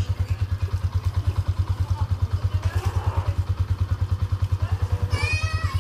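Motorcycle engine idling with a rapid, even low throb.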